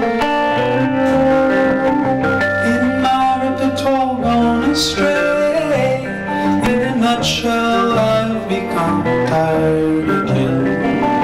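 Live band playing a song: guitar over bass and drums, with many sustained pitched notes and two cymbal crashes about five and seven seconds in.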